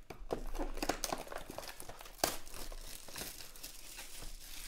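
Clear plastic wrapper crinkling and tearing as it is pulled off a trading-card box, with a run of small crackles and one sharper snap a little after two seconds in.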